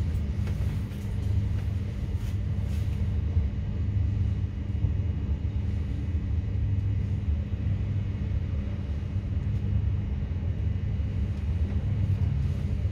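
Passenger train running along the line, heard from inside the carriage: a steady low rumble with a constant hum under it.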